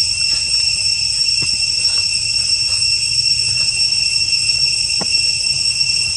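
Insects droning steadily: a shrill, continuous buzz held at several high pitches at once, over a low rumble, with a soft click about five seconds in.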